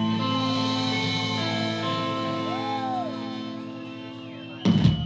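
Live rock band holding its final chord, guitars and bass ringing out and slowly fading, ending the song. A loud, sharp hit comes near the end.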